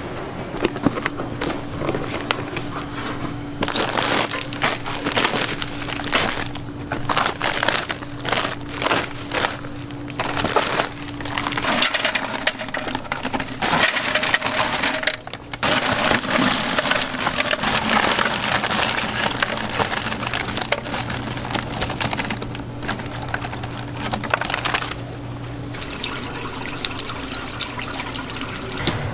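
Paper crinkling as a large sheet is spread over the counter, then hands stirring raw shrimp in a steel bowl of water, with water sloshing and splashing. A steady low hum runs underneath.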